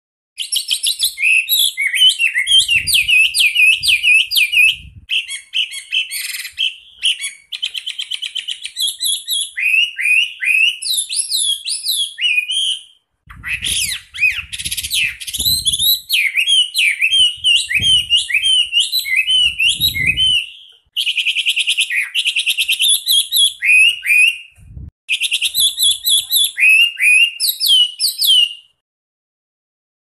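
Chinese hwamei (wambie) singing a loud, dense song of rapid whistled notes and fast rolling trills, in long phrases broken by a few short pauses, stopping shortly before the end.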